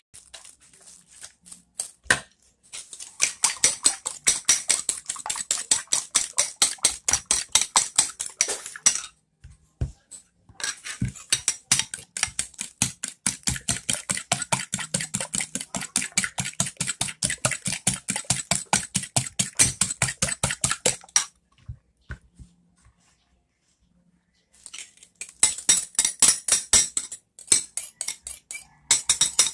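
A metal spoon beating eggs in a ceramic bowl, clinking rapidly against the bowl about five times a second. It goes in runs of several seconds, with two short pauses.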